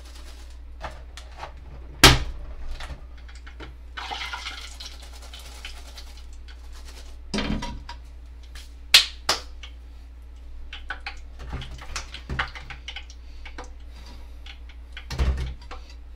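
Bowl and utensils knocking and clinking, with a short stretch of splashing liquid about four seconds in.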